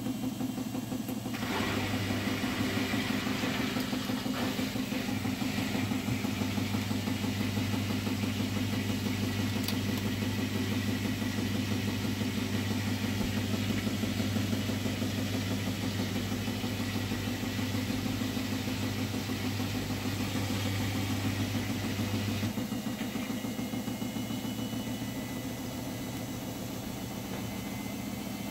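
Hotpoint front-loading washing machine on its final high-speed spin, the drum running with a steady low hum and a fine regular pulse. A deeper hum sets in about a second and a half in and drops away after about 22 seconds.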